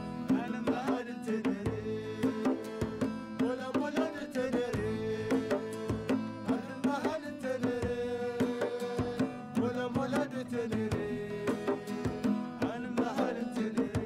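Two acoustic guitars and a djembe playing Tuareg guitar music: a plucked, bending guitar melody over a repeating guitar figure, with hand-drum strokes keeping a steady beat.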